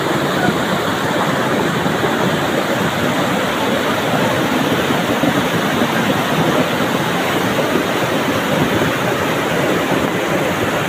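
Muddy flash-flood torrent and debris flow rushing by: a loud, steady rush of water without a break.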